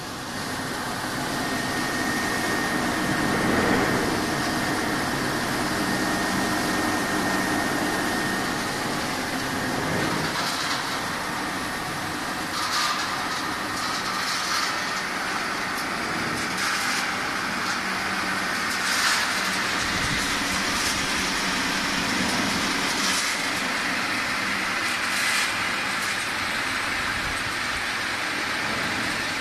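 Peanut frying line machinery running: mesh belt conveyors and a vibrating screen shaking fried peanuts give a steady mechanical noise. A faint steady tone sounds for the first several seconds, and brief louder rushes of noise come now and then.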